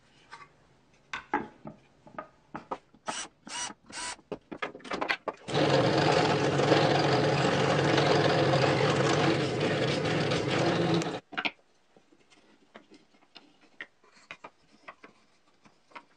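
Wooden parts knocking and clicking as they are handled, then an electric drill running steadily for about six seconds before stopping abruptly, as the back is fastened onto the wooden lock.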